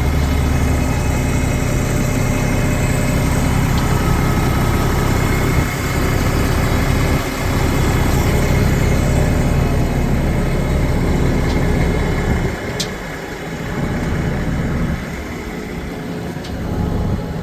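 The Mack 11.9-litre inline-six diesel of a 2005 Mack Granite concrete truck idling steadily, quieter for a few seconds near the end.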